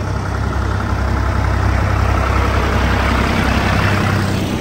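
Tractor engines running as a parade of tractors drives slowly past, with a steady low engine hum. It grows louder as one tractor passes close by about three to four seconds in, then drops away.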